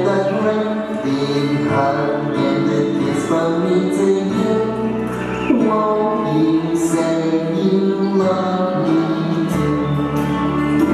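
A song with singing over instrumental backing, held notes over a bass that changes note every few seconds.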